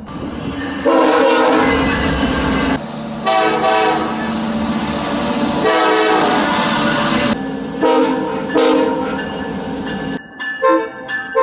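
Train horns sounding: three long blasts over the loud rushing and rail noise of a passing train, then several short toots.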